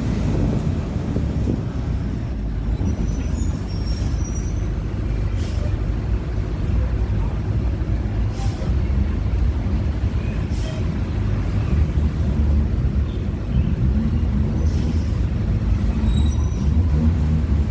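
Mercedes-Benz OF-1721 BlueTec5 diesel city bus under way, heard from inside the cabin: the engine and driveline run steadily with the growl of a noisy differential. The growl eases in the middle and builds again near the end, and a few short hisses of air cut in.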